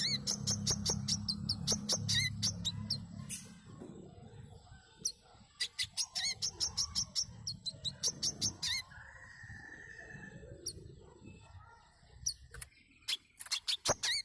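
Brown-throated sunbird (Manggar, Kolibri Kelapa) singing: bursts of rapid, high, sharp chirps with short pauses between them. A low hum sits under the first few seconds.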